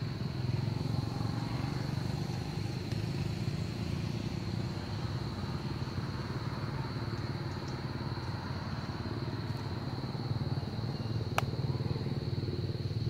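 Motorbike engine idling steadily, an even low hum. A thin steady high tone runs above it, and there is one sharp click near the end.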